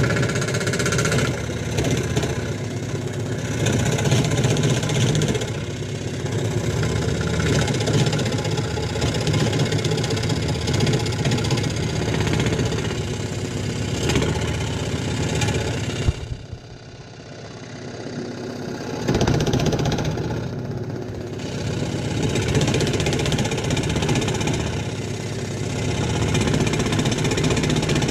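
Scroll saw running, its reciprocating blade cutting through a walnut board. A little past halfway there is a sharp click and the sound drops off, then builds back up over a few seconds and runs steadily again.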